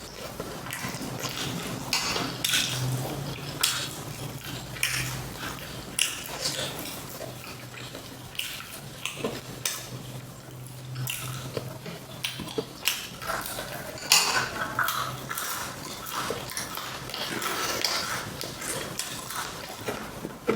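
Close-miked eating of spicy fried chicken: irregular crunching and chewing with wet mouth sounds, and now and then a clink of tableware.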